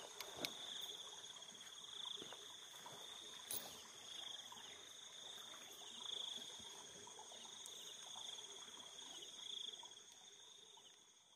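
Crickets trilling steadily in the night, a high continuous pulsing trill, with a few faint knocks from handling near the start.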